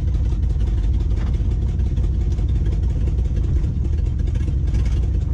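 Plow pickup truck's engine idling steadily, heard from inside the cab.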